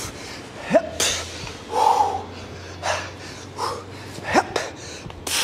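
A man breathing hard during an exercise interval: short, forceful exhales every second or so.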